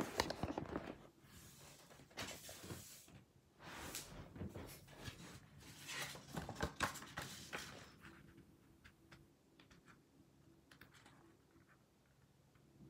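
A paper instruction booklet handled: rustling and clicking as it is picked up and its pages are turned, then only faint taps and ticks for the last few seconds.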